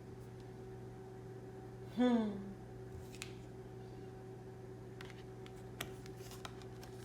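A short, falling wordless vocal "mm" about two seconds in, over a steady low electrical hum. A few faint clicks and rustles from tarot cards being handled come later.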